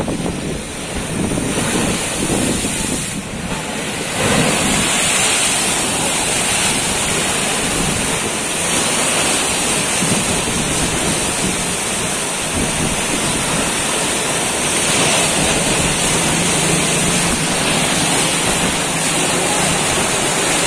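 Bono tidal bore: turbulent muddy water rushing and churning as it floods over the riverbank, a steady loud rush that grows louder about four seconds in.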